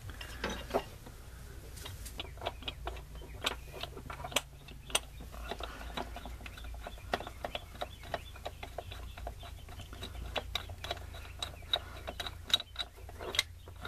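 Irregular light clicks and taps of metal on metal as a motor mount and its bolts are handled and worked into place against the engine, over a steady low hum.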